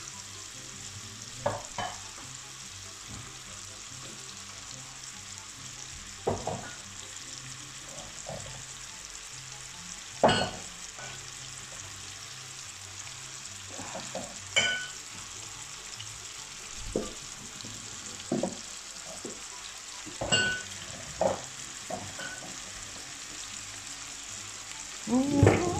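Diced chicken breast frying in oil in a pan, a steady sizzle, with a scattering of short knocks and clicks from the spoon and utensils.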